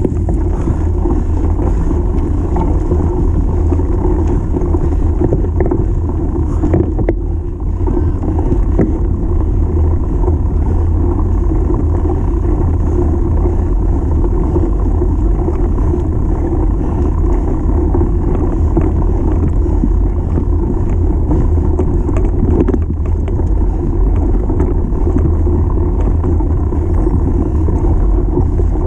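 Mountain bike riding a dirt track, heard through an action camera's microphone: a steady low rumble of wind buffeting and tyres on gravel, with scattered small clicks and rattles from the bike. There is a brief break about seven seconds in.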